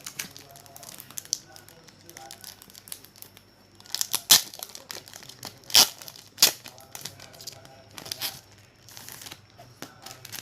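Packaging of a boxed DVD set being handled and crinkled, with sharp crackling rustles, the loudest in the middle.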